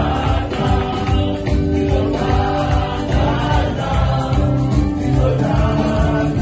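Live gospel worship music: a group of voices singing a Zulu chorus together over electric bass, acoustic guitar and keyboard.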